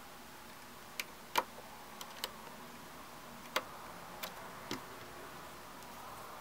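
Light, irregular clicks and taps of small repair tools on the parts of an iPhone 5c being worked on by hand, about eight sharp ticks spread over a few seconds.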